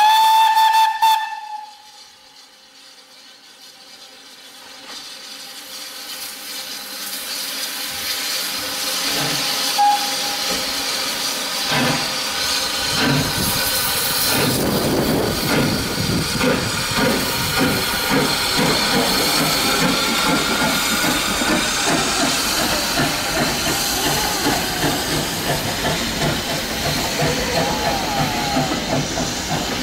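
Steam locomotive in SECR livery: a whistle blast that cuts off about a second in, then, after a short lull, hissing steam and the exhaust beats of the engine getting under way, building from about twelve seconds in and keeping up as the train pulls out past the platform.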